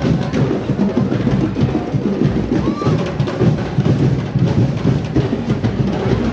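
Drums and other percussion playing dense, unbroken street-dance music, the accompaniment to a festival tribe's dance.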